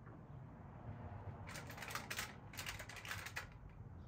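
Faint light tapping and clicking in two short clusters over a low steady hum.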